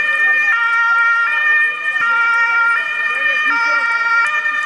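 Two-tone emergency-vehicle siren of the German Martinshorn kind, alternating between a high and a low note, switching about every three quarters of a second.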